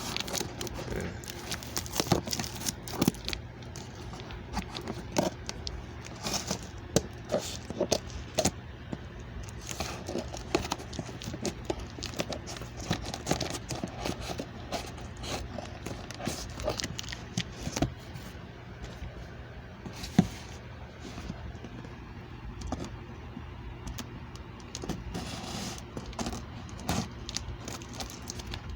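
A cardboard shipping box being opened and unpacked by hand: irregular clicks, scrapes and crinkling of tape and packing material, over a steady low hum.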